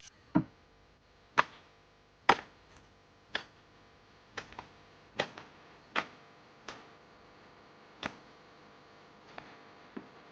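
A series of sharp knocks or strikes, about ten of them at uneven spacing, roughly one a second.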